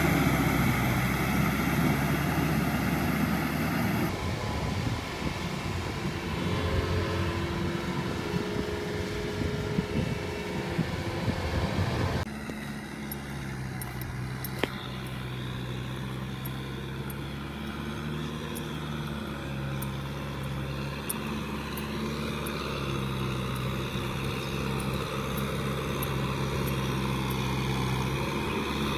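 Kubota M6040SU tractor's diesel engine running steadily under load as it pulls a rotary tiller through paddy mud. Loud and close at first, then quieter and more distant from about twelve seconds in.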